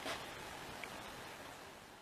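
Faint steady hiss of room noise with a light click at the start and another near the middle, fading out toward the end.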